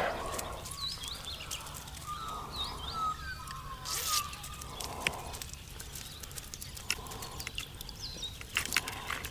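Birds calling with short, curving chirps, over faint outdoor background, with scattered small clicks and a brief burst of noise about four seconds in.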